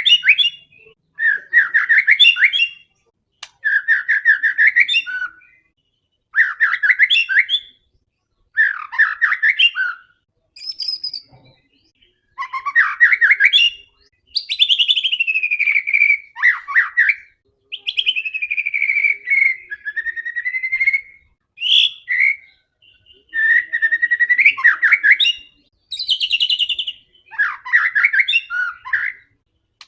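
White-rumped shama (murai batu) in full song: a string of loud, varied phrases of rapid trills and long falling whistles, each broken off by a short pause.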